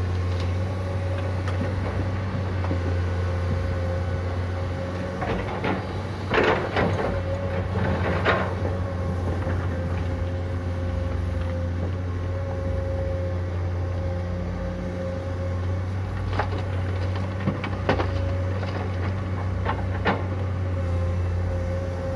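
Komatsu PC200 hydraulic excavator's diesel engine running steadily under digging load, with a low hum and a constant whine. Its steel bucket scrapes and knocks against rock several times, the loudest clatter about six to eight seconds in.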